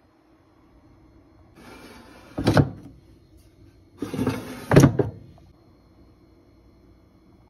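The two baskets of a Ninja DualZone air fryer pushed in one after the other, each with a short sliding scrape that ends in a solid thump as the drawer shuts, about two seconds apart.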